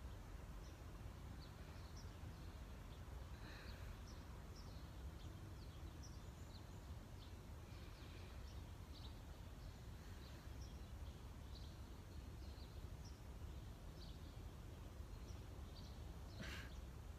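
Faint ambience of scattered short bird chirps over a low steady rumble, with a brief louder noise near the end.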